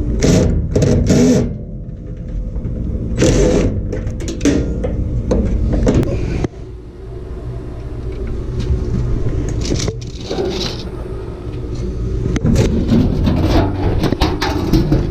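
Sheet-metal knocks, clunks and scraping as a furnace's blower assembly is worked loose and pulled out, over a steady low hum.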